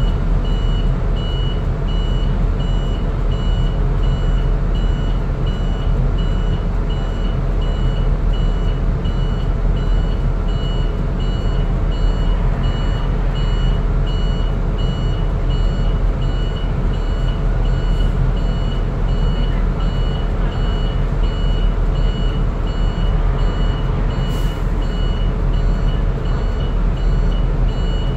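Bus engine running with a steady low rumble, heard from inside the vehicle while it idles and creeps in traffic. Over it, a high electronic beep repeats at an even pace.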